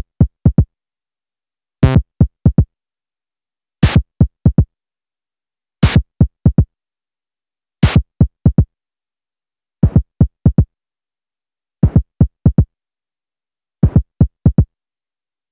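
Synthesized drum pattern from the KORG iMS-20 app: a loop of four quick, downward-sweeping kick-drum thumps every two seconds. The first thump of each group carries a short burst of noise, which drops away after about ten seconds.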